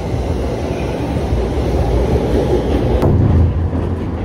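Steady outdoor background noise, then a sudden switch about three seconds in to a train running, heard from inside the carriage as it crosses a steel truss bridge: a steady low rumble.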